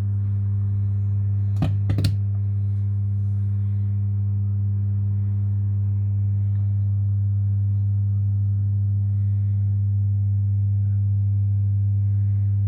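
Mackie CR4 multimedia monitor speakers giving out a steady low buzzing hum, a fault the owner wants fixed. Two short clicks come about a second and a half in.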